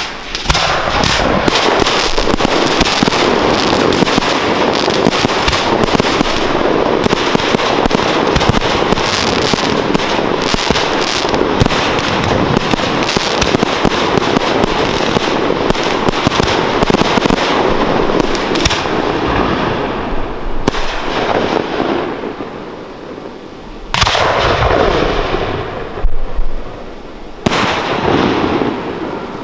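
Aerial fireworks shells bursting in a dense, rapid barrage of bangs and crackle for about twenty seconds. The barrage then thins out, and a few single loud bursts come near the end.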